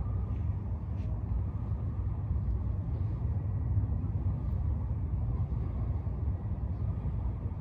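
Wind buffeting the microphone: a steady, low, fluttering rumble.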